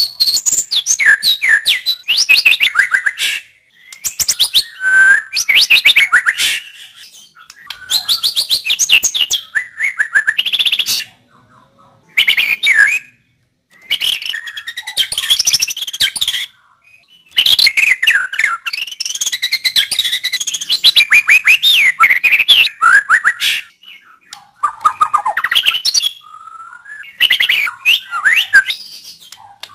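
White-rumped shama (murai batu) singing loud, varied phrases of whistles, trills and chatter, each a few seconds long, separated by short pauses.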